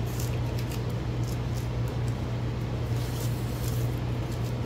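Masking tape being peeled off a primed metal vent window frame, a few short rips, over a steady low hum.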